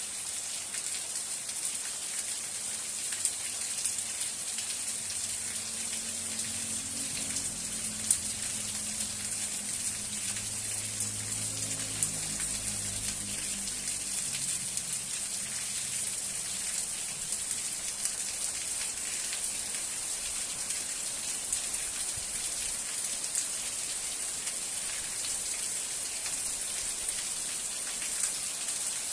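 Steady rain falling, an even hiss with scattered louder drops striking close by. A faint low rumble comes and goes in the middle.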